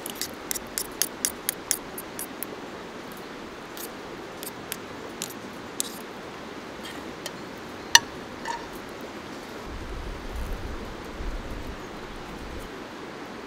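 Metal spoon and fork clinking and scraping against a metal plate while food is stirred, a quick run of clinks in the first couple of seconds and scattered ones after. About eight seconds in, one louder ringing clank as the spoon is laid in the steel frying pan. A steady river rush runs underneath.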